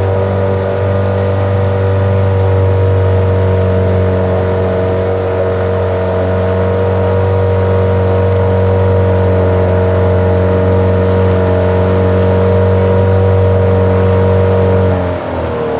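Boat motor running steadily at low speed, its pitch falling about a second before the end.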